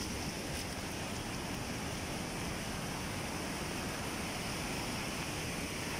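Steady rushing of muddy floodwater flowing across a road, a continuous noisy wash with no breaks.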